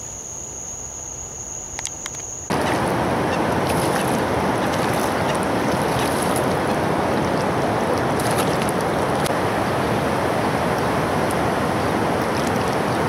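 Hooked black bass splashing at the water's surface while an insect trills steadily at a high pitch. About two and a half seconds in, a loud steady rushing noise starts abruptly and covers everything for the rest.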